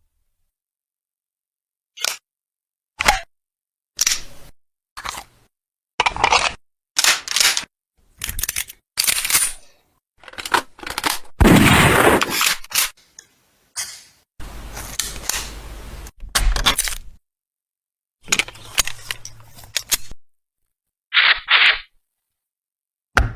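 A string of separate gun-reloading sound effects: sharp metallic clicks and clacks, with a few longer sliding, rattling stretches, each one cut off cleanly before the next.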